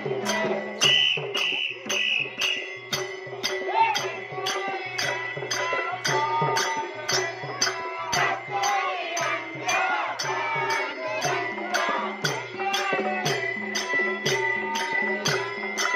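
Tamil devotional bhajan music: voices singing over a drum and jingling percussion that keeps a steady beat of about two strokes a second.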